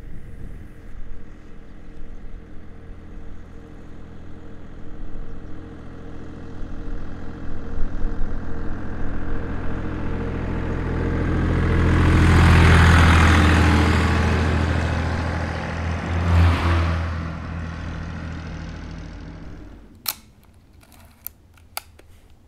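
Road traffic passing on a country road: a vehicle's noise swells to a peak about halfway through and fades, with a second shorter swell a few seconds later, over a steady low hum. It cuts off abruptly, and a few sharp clicks of a film camera follow near the end.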